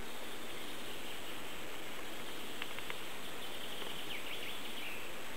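Outdoor ambience: a steady hiss of background noise, with a few faint, short bird chirps between about two and a half and four and a half seconds in.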